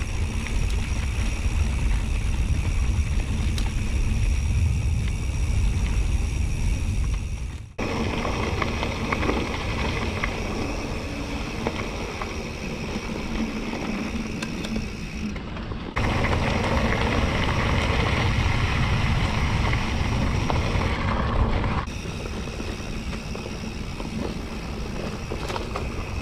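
Rockrider XC100S mountain bike ridden along a dirt forest track: a steady rumbling noise of tyres on dirt and the bike rattling, with scattered small clicks. The sound changes abruptly three times, about 8, 16 and 22 seconds in.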